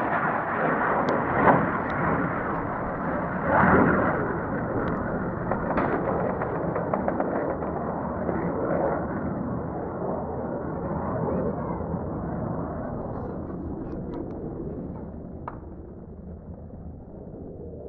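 MiG fighter jet's engine roar overhead, a dense rushing noise that slowly fades as the jet moves away. A sudden louder burst comes about four seconds in.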